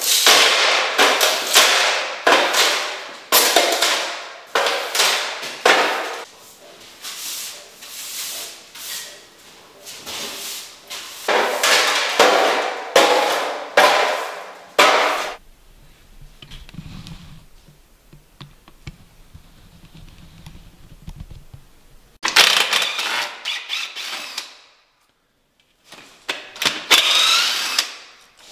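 Push broom sweeping a ceramic tile floor: brisk scraping strokes about twice a second. After about fifteen seconds the sweeping stops and a low steady hum is left, followed near the end by a few seconds of louder noise.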